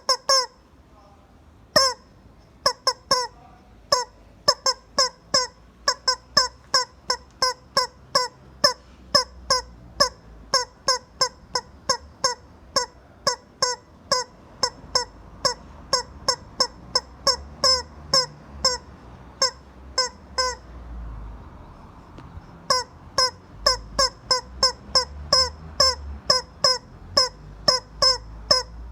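Rubber chicken toy squeezed over and over, each squeeze a short honking squawk. The squawks come at about two to three a second, sparse at first, with a pause of about two seconds about two-thirds of the way through before they resume.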